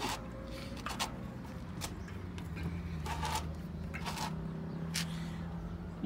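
Dirt-jump bike's front wheel spinning freely on its Novatec 20 mm hub: a steady low whir with a few light ticks scattered through it.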